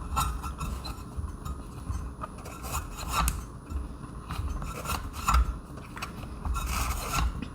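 Screws being turned into a doorbell door mount with a screwdriver: rubbing handling noise with scattered, irregular clicks.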